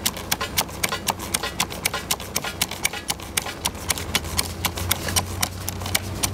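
Hand pump on a hydraulic shoring pump can being worked, giving rapid, fairly even clicks, about five a second, as pressure is built in the shore's cylinder. A low steady engine hum from the parked backhoe runs underneath.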